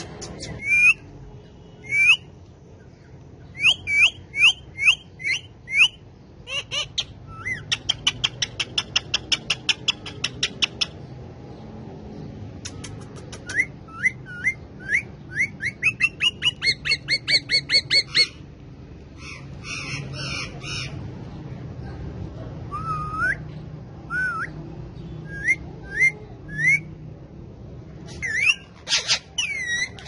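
Indian ringneck parakeets squawking in short, shrill calls, some single and some in long runs of about four calls a second.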